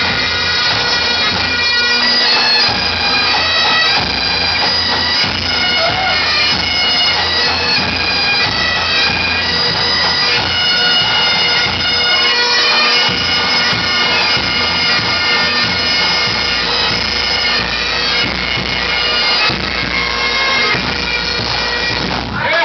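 A band of Great Highland bagpipes playing a tune together over their steady drones.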